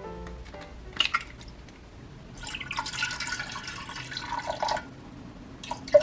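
Liquid pouring into a container for about two and a half seconds, with the pitch rising as it fills. A sharp click comes about a second in.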